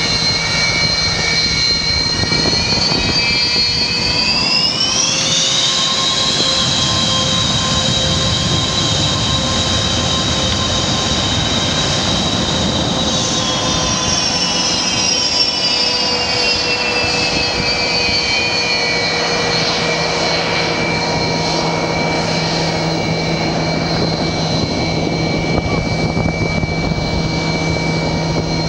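Sukhoi Su-30's twin jet engines whining at taxi power. The whine climbs in pitch about five seconds in, holds, then slowly sinks over several seconds from about halfway and settles at a steady lower pitch.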